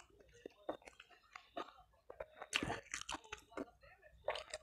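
A man chewing a mouthful of a spicy instant-noodle dish close to a clip-on microphone: irregular wet mouth clicks and crackles, busiest about two and a half seconds in.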